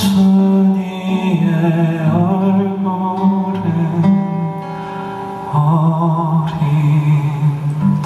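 Live band music with a male voice singing long, wavering held notes and no clear words over the accompaniment.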